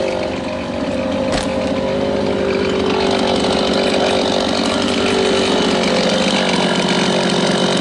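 Stihl chainsaw running at a steady engine speed, with one sharp knock about a second and a half in.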